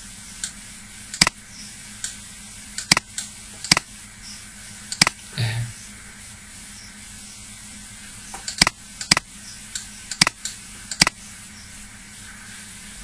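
Computer mouse clicking: about ten sharp single clicks at irregular intervals, over a steady microphone hum and hiss.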